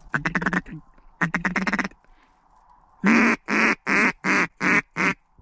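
Mallard-style duck call blown to circling ducks. Two raspy drawn-out notes come first, then a series of six short, loud quacks at about three a second.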